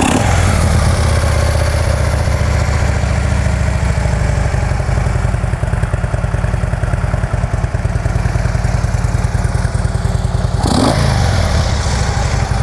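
Harley-Davidson Screamin' Eagle 110 V-twin engine idling steadily, with a brief rise in revs near the end.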